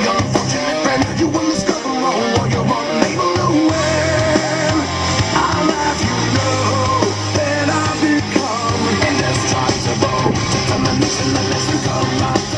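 Rock music with electric guitar, drums and singing, at a steady loud level.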